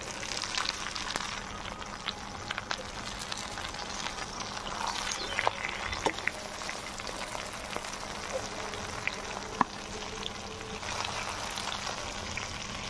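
Raw-banana koftas deep-frying in foaming mustard oil in a steel kadai: a steady sizzle and crackle, with scattered sharp clinks of the steel slotted spoon against the pan as the koftas are lifted out.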